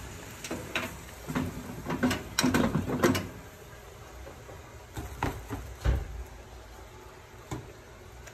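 Small metal pan knocking and scraping as it is lifted off a gas stove burner and its simmered egg-and-kakiage topping is tipped into a plastic container of rice. There is a dense run of knocks in the first three seconds, then a few more around five to six seconds in.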